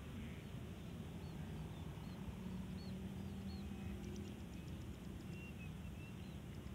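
Wind rumbling on the microphone, with a run of faint, high, short bird chirps over it. A faint low steady hum rises in the middle and fades again.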